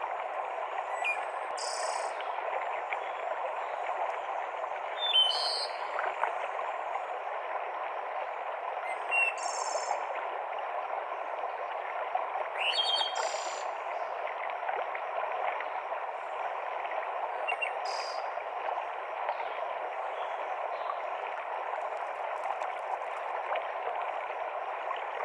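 Steady rush of a mountain stream cascading through a forest, with short high bird calls breaking in every few seconds.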